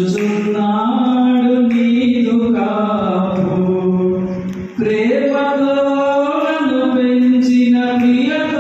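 A man singing a slow devotional song into a microphone, holding long notes that step up and down in pitch, with a short break just under five seconds in.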